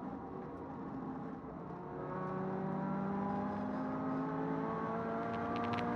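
Turbocharged Toyota 86's flat-four engine under acceleration, heard from inside the car, its pitch climbing steadily from about two seconds in. A fast rattling clicking comes in over it near the end.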